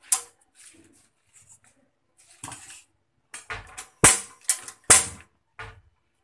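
Metal spoon clinking against a steel saucepan and container as powder is spooned into the pot: a sharp tap at the start, scattered light clicks, then three loud taps in quick succession about four to five seconds in and a softer one after.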